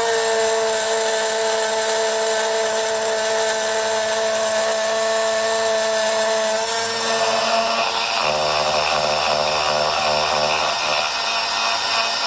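CNC engraving machine's spindle running and cutting into copper, a steady whine made of several held tones. About seven seconds in the tones shift and a harsher, hissier cutting noise takes over.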